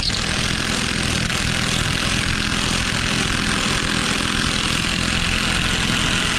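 AOBEN 1/2-inch cordless impact wrench on its low power setting, hammering steadily as it drives a bolt back into a nut whose threads have been deformed.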